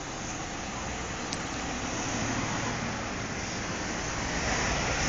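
Road traffic: a car driving past close by with tyre noise on the road, and a bus engine running low behind it, getting louder through the second half.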